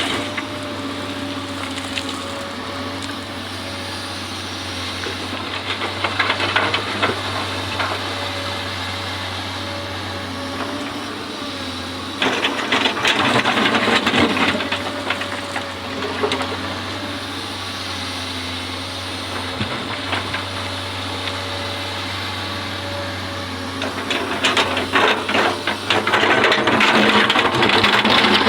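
Hydraulic excavator engine running steadily, with louder rattling stretches about halfway through and again near the end as the machine works.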